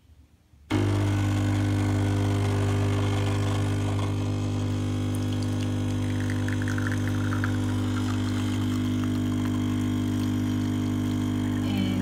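Smeg espresso machine's pump switching on suddenly about a second in and humming steadily as a two-cup espresso shot pours into the cup.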